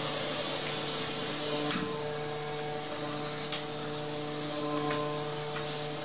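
Three sharp knocks about a second and a half apart from work on a door jamb being shimmed, over a steady hiss and a low hum.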